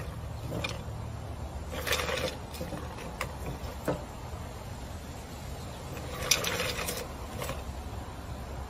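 Short bursts of scratching and scraping against a cup, three times, with a few sharp clicks between them, over a low steady hum.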